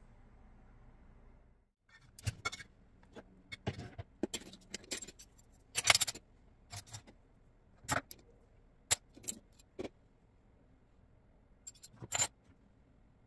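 Metal kitchen utensils clinking and clattering as they are handled and set down in a drawer: a string of separate sharp clinks, loudest about six seconds in, with a last short cluster near the end.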